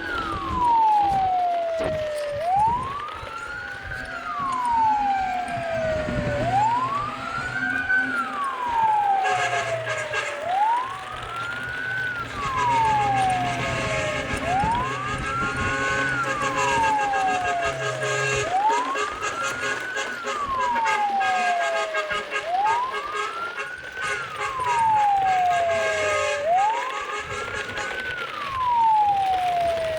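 A wailing siren, its pitch sweeping up and then sliding back down about every four seconds, with a fainter second wail overlapping. From about nine seconds in, a cluster of steady higher tones joins it.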